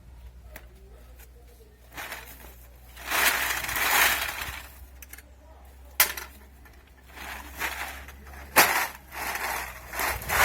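Already-crushed aluminium cans crunching and rattling as they are handled, with two sharp knocks about six and eight and a half seconds in, over a low steady hum.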